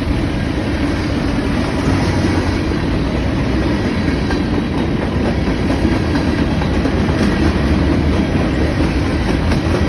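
Norfolk Southern freight train rolling past, a steady, loud rumble of steel wheels on the rails.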